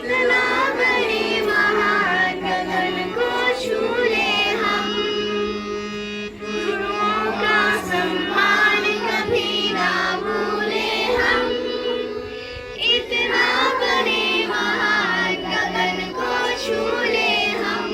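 Children singing a song with instrumental accompaniment, the voices carried over steady held notes underneath.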